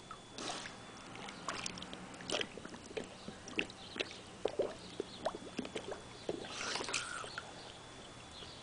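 Husky pawing at and dipping its muzzle into shallow pool water: a run of small, irregular splashes and sloshes.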